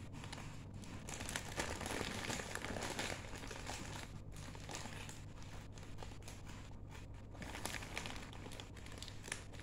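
Plastic packaging crinkling and rustling as it is handled and opened, with many small crackles.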